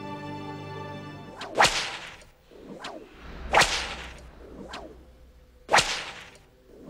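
Whip lashes flogging a man's bare back: three sharp cracks about two seconds apart, each led in by a short swish.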